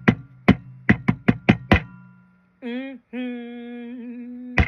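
A quick run of sharp knocks, about eight in under two seconds, stops about two seconds in. A woman's singing voice then slides briefly and holds one steady note, and a single knock comes near the end.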